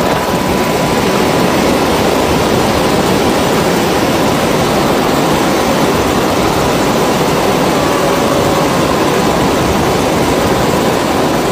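Military helicopter in flight with its door open: a loud, steady rush of wind and engine and rotor noise, with a faint steady whine.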